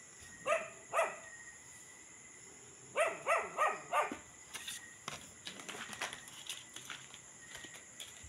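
Dog barking: two barks about half a second apart near the start, then a run of four quick barks around three to four seconds in.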